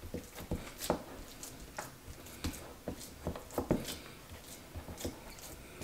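Raw ground-beef meatloaf mixture being pressed and patted by hand into a small metal loaf pan: soft, irregular squishing and patting with occasional light knocks.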